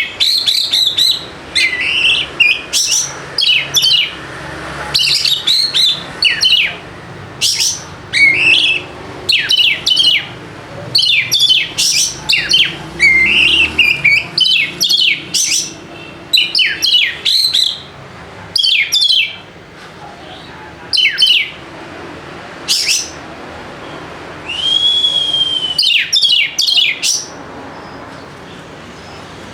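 Oriental magpie-robin (kacer) singing: rapid runs of sharp chirps and whistled notes in bursts with short pauses between them, and one longer arching whistle near the end.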